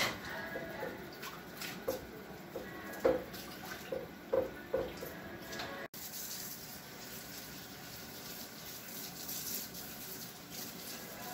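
Kitchen tap running into a sink, with knocks and short clinks of dishes being handled in the sink during the first half.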